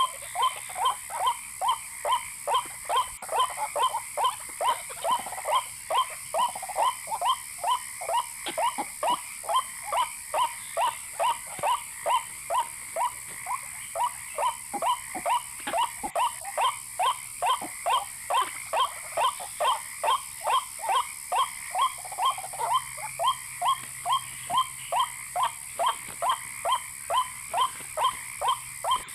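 White-breasted waterhen (ruak-ruak) calling: a steady, unbroken series of short repeated notes, about two a second.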